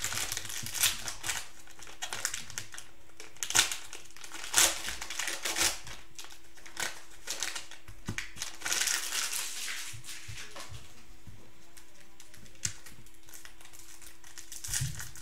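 Cellophane wrapper of a Panini Prizm basketball cello pack crinkling and tearing as it is opened by hand, with sharp crackles now and then. It goes quieter for the last few seconds.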